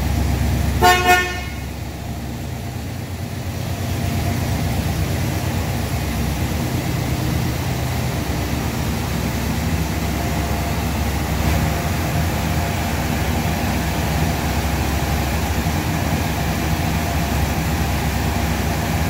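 1970 Oldsmobile 442's 455 V8 idling steadily. About a second in, a car horn gives two short toots.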